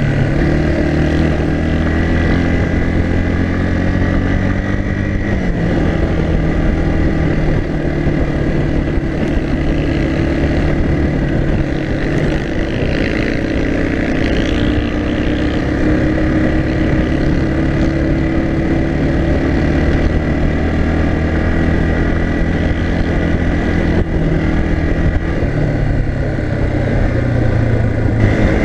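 Yamaha TT-R 230's air-cooled single-cylinder four-stroke engine running at a steady cruise, heard up close from the rider's chest with wind noise. The engine note drops a little about five seconds in and again near the end.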